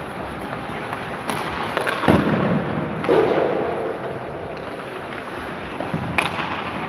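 Hockey sticks cracking against pucks and pucks banging against the rink boards, a few sharp cracks with a ringing echo in the arena, over the scrape of skates on ice.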